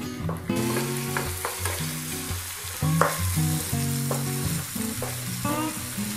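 Eggs sizzling as they fry in a nonstick frying pan, with a wooden spatula stirring and scraping through the whites; the sizzle brightens about half a second in. Background music plays underneath.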